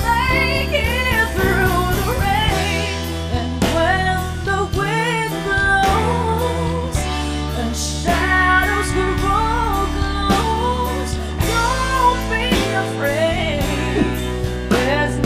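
A woman singing a slow ballad into a microphone, her voice wavering with vibrato and sliding through runs, over a live band of electric guitar, bass, drums and keyboard.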